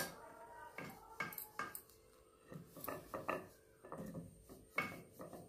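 Wooden rolling pin working a stuffed paratha on a stone rolling board: soft rubbing broken by irregular knocks and clicks as the pin rolls and touches down on the board.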